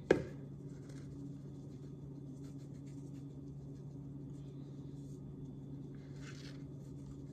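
Seasoning salt being shaken from a plastic shaker bottle into a plastic bowl of dry cornstarch, with one sharp click just after the start. Then comes faint scratchy rustling as the powder is sprinkled and worked by hand, over a steady low hum.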